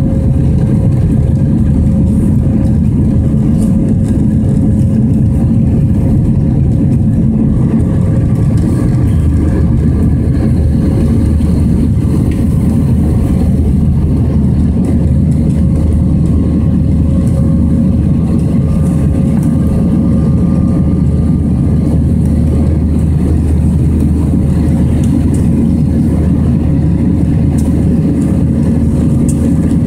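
Airbus A320 jet engines and rushing air heard from inside the cabin over the wing during the climb after takeoff. The noise is loud and steady, with a constant hum, and a deeper low drone strengthens about nine seconds in.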